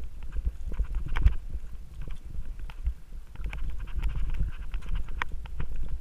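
Mountain bike ridden over a bumpy dirt trail: a steady low rumble of the tyres on the ground with frequent irregular clicks and knocks as the bike rattles, picked up by a camera mounted on the handlebars.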